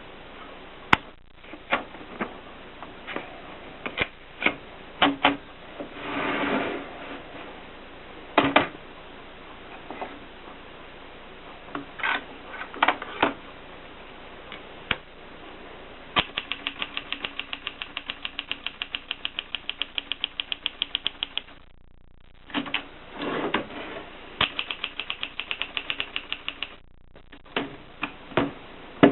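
Gossen Tippa portable typewriter being worked. First come scattered single clicks and a couple of sliding, rubbing sounds, then a long run of rapid, evenly spaced clicks. After a short pause there is another slide and a second even run of clicks near the end.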